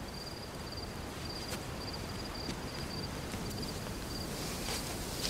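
Night ambience of a cricket chirping in a steady rhythm, a high pulsed chirp repeating one to two times a second over a low hiss, with a few faint clicks.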